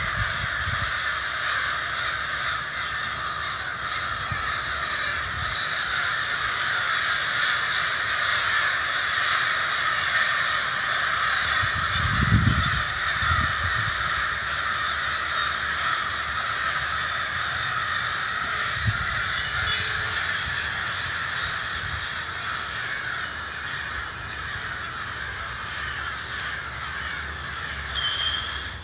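A large flock of crows cawing all at once, the many overlapping calls merging into a continuous loud din. A few low thuds stand out about twelve and nineteen seconds in.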